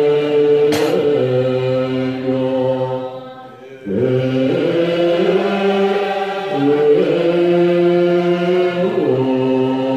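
A large assembly of Tibetan Buddhist monastics chanting prayers in unison, low voices holding long sustained notes. The chant thins out a little past three seconds in and comes back in full just before four seconds. There is a short sharp click about a second in.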